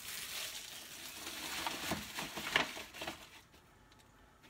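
Plastic wrapping of bath bombs rustling and crinkling as they are handled, with a couple of sharper crackles about two seconds in; it stops about three seconds in.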